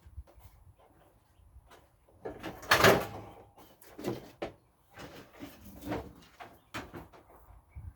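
Metal clunks and knocks from a Roper washer's cabinet and parts being tipped over and handled, the loudest clunk about three seconds in, with a brief ring after it.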